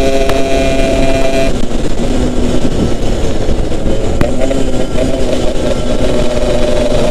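Yamaha RX-King's single-cylinder two-stroke engine running on the move. Its tone holds steady at first, drops off about a second and a half in, then runs lower and rougher before building again near the end.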